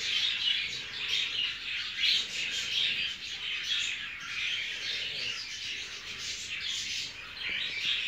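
Budgerigars chattering: a steady stream of quick, high chirps and warbles that doesn't let up.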